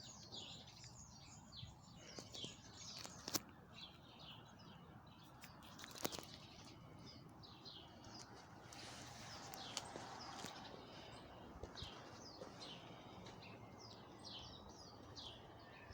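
Faint background birdsong: many short, high chirps repeating throughout over a low outdoor hiss, with a couple of sharp clicks about three and six seconds in.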